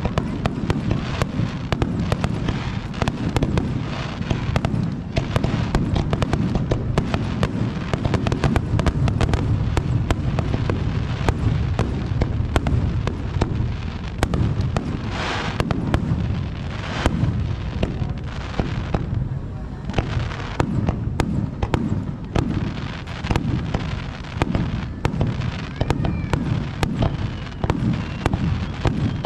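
Aerial fireworks display: a dense barrage of shell bursts, many a second, over a continuous low rumble of booms.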